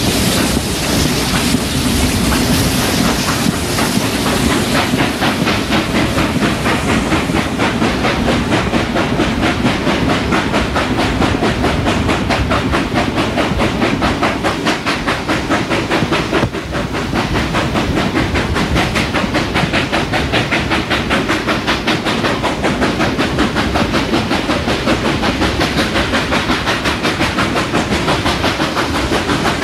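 Reading 2102, a T-1 class 4-8-4 steam locomotive, running under way: a rapid, even beat over a constant hiss of steam.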